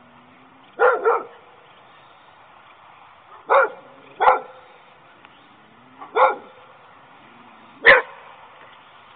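A small dog barking, about six short sharp barks spaced irregularly, a couple of them coming in quick pairs.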